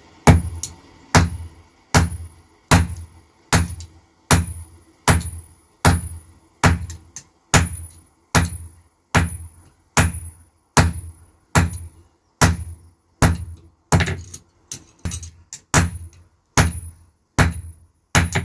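Blacksmith's hammer striking iron on an anvil in a steady forging rhythm, about one heavy blow every 0.8 s with lighter taps in between, each blow leaving a short high ring, as the chisel is being forged.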